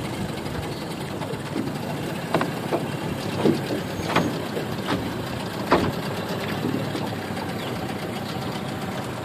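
Boat motor idling steadily, with several short sharp knocks through the middle.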